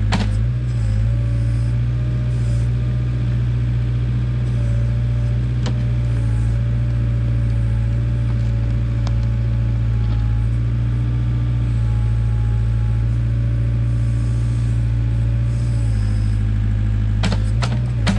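Case 580K backhoe's engine running steadily as the machine works, with a few sharp knocks near the end.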